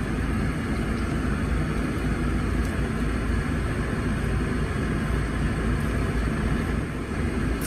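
Steady rumble and hiss inside a car cabin, from the car running with its air-conditioning fan blowing.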